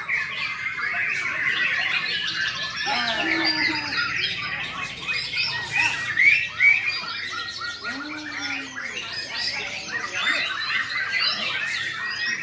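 Chorus of caged white-rumped shamas (murai batu) singing at once, a dense, unbroken jumble of quick overlapping whistles, chirps and trills from many birds.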